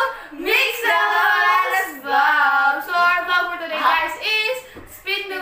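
Girls singing in high voices, several drawn-out notes with short breaks between them.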